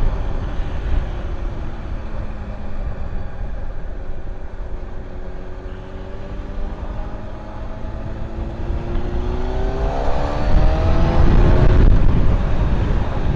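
Honda Fireblade's inline-four engine under way: its pitch falls as the bike slows over the first few seconds, then rises steadily as it accelerates, getting louder near the end. Wind rumble on the helmet microphone underneath.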